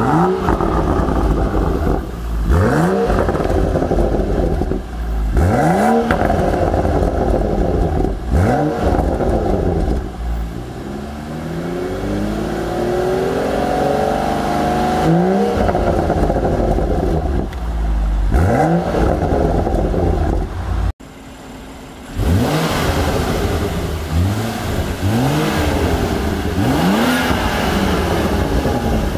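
BMW M235i's turbocharged 3.0-litre straight-six revved in place through an M Performance exhaust: sharp blips of the throttle every few seconds, with one longer, slower climb in revs in the middle. After a short dip in level about two-thirds through, quicker blips follow.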